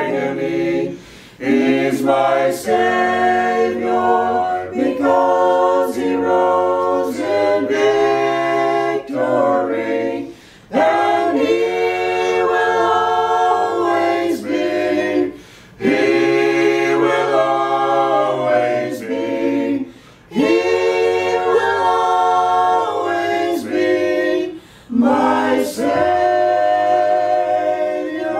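A small mixed group of men and women sings a hymn a cappella in harmony, with no instruments. The song moves in long phrases separated by short breath pauses.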